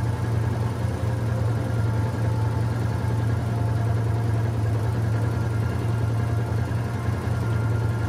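Steady low hum of an idling engine, even and unbroken.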